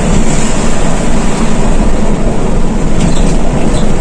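Intercity coach bus driving at speed, heard from inside the cabin: a loud, steady rumble of engine and road noise.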